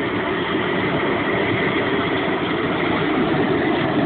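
Gas torch burning with a steady rushing noise as its flame is played over a pig carcass to singe off the bristles.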